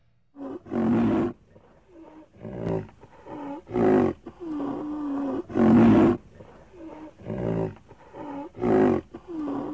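Rhinoceros calling again and again: loud, harsh calls every one to two seconds, with softer, drawn-out whining calls between them.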